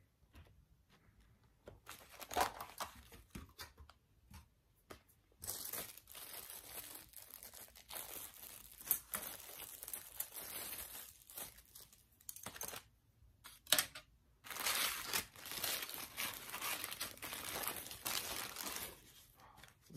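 Food packaging crinkling and tearing in hand as a meal is unwrapped: a plastic cutlery bag is torn open and rustled in the first half, then a paper sandwich wrapper is crinkled open in the second half, with a few sharp clicks between.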